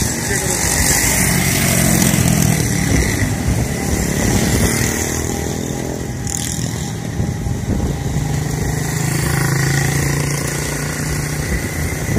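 Steady engine and rolling noise of passing vehicles, with a low engine hum swelling about a second in and again near the end.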